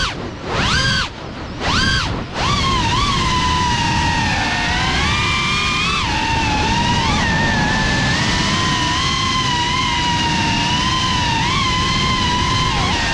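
Geprc Cinelog 35 ducted FPV quadcopter's motors and propellers whining. The pitch swings sharply up and down with quick throttle punches and chops in the first couple of seconds, then holds a steady high whine with small rises, over a rushing wash of air.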